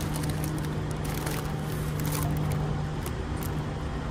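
Steady low background hum with faint handling clicks and crinkles as a sandwich is picked over.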